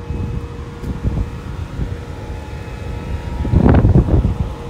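Gusty wind buffeting the microphone, with a steady faint hum underneath; a stronger gust hits about three and a half seconds in.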